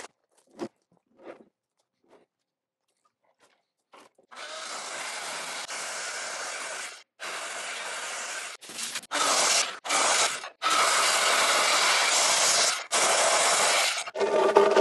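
Handheld circular saw cutting a pecan slab into strips. It runs in several stretches with short breaks, starting about four seconds in after near quiet, and is louder from about halfway on.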